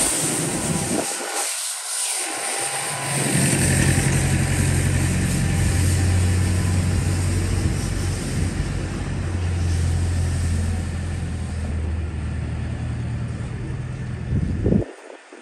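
City street traffic: a motor vehicle's engine hums steadily close by from about three seconds in, over a constant hiss of traffic. The sound cuts off abruptly near the end.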